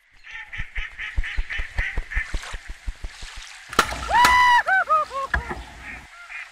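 A rapid run of soft beats, about five a second, then a sharp click, then a duck quacking: one long quack followed by a run of shorter quacks that fall in pitch.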